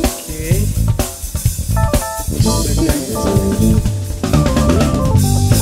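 Instrumental background music with drums and bass guitar, a steady beat.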